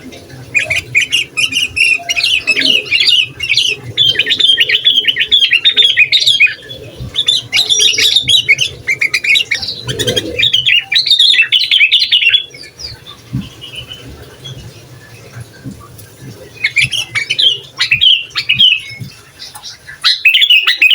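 Sooty-headed bulbul singing a fast, chattering run of notes. The song stops for a few seconds past the middle, then starts again.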